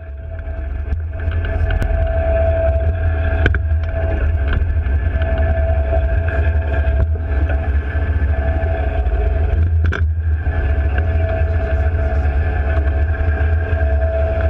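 Twin diesel engines of a Mersey-class lifeboat running steadily under way: a deep rumble with a steady whine over it, fading up over the first second or so. A couple of sharp knocks sound about three and a half and ten seconds in.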